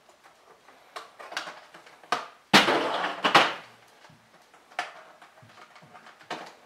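Coins and a clear plastic coin tray clicking and knocking as the tray is handled, with a loud clatter of coins and plastic about two and a half seconds in that lasts about a second.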